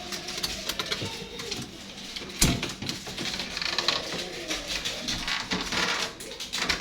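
Handling noises around a newly unboxed refrigerator and its packaging: scattered clicks, rustles and light knocks, with one louder thump about two and a half seconds in.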